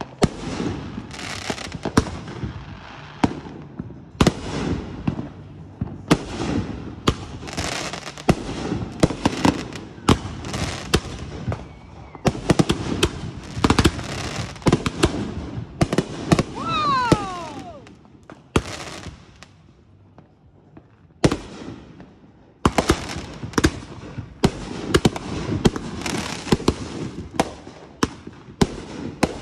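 Fireworks display: a rapid run of aerial shell bangs with crackling. About two-thirds of the way through, a short whistle falls in pitch. A brief lull follows before the bangs pick up again.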